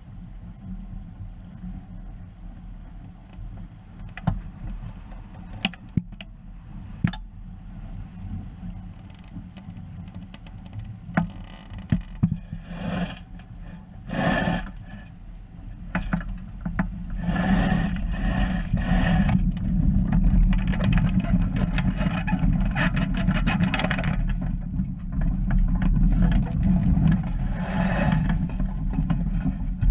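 Water rushing and slapping against the hull of a small sailing dinghy heeled over under sail, over a steady low rumble of wind on the microphone. There are a few sharp knocks in the first half, and the splashing grows louder and more continuous about halfway through.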